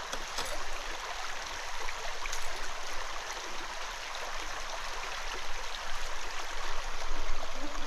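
Small trout stream running steadily, an even rush of flowing water.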